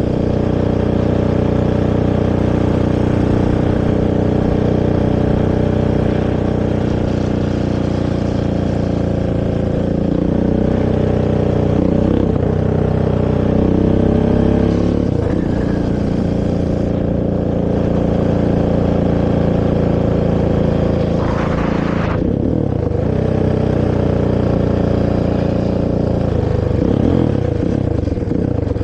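Honda TRX450R quad's single-cylinder four-stroke engine on its stock exhaust, running continuously under throttle. The pitch rises and falls several times in the middle and again near the end as the revs change.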